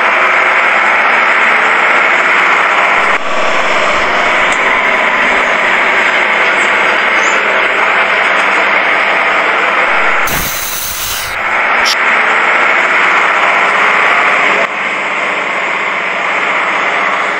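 Steady, loud engine drone for a model Hino cargo truck driving. The drone changes abruptly about 3 and 15 seconds in, and there is a short rushing noise about ten seconds in.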